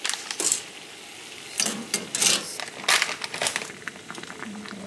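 A nest of thin dried Korean cold noodles being pulled apart by hand, crackling and crinkling in about five short bursts.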